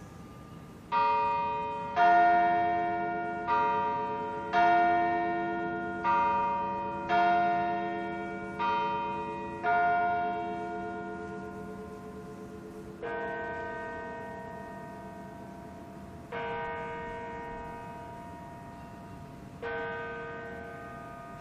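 Church bells: two bells struck alternately in a ding-dong pattern, eight strikes about a second apart, each ringing on and dying away. About two-thirds of the way in, the pattern gives way to a slower tolling of a lower bell, struck three times about three seconds apart.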